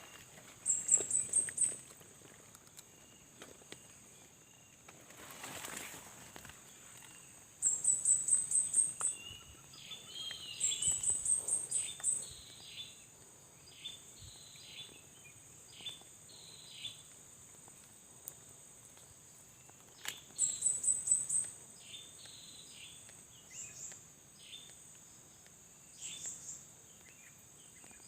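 Wild birds calling: many short, repeated falling whistles, with four loud bursts of rapid high-pitched chirping, over a steady high insect drone.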